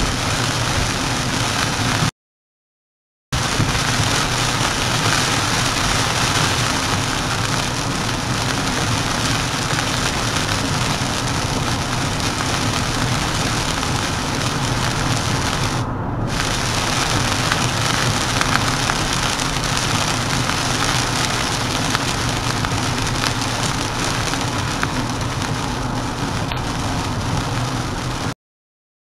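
Heavy rain falling on a car's windshield and roof over steady tyre and road noise, heard from inside the cabin. The sound cuts out to dead silence for about a second two seconds in and again near the end.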